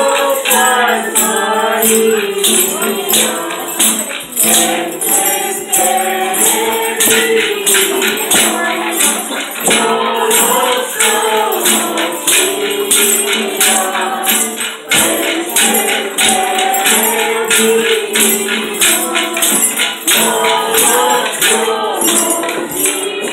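A group of adults and children singing a posada song together, accompanied by acoustic guitar and shaken percussion keeping a steady beat.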